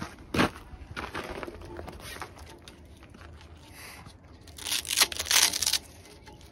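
Velcro hook-and-loop strap being peeled open, a loud rasping rip lasting about a second near the end, after a short knock about half a second in and some quieter handling.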